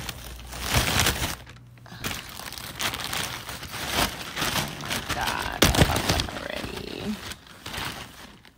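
Plastic packaging rustling and crinkling as a plastic mailer bag and the thin plastic bag around a pair of boots are handled and pulled open, with irregular sharp crackles.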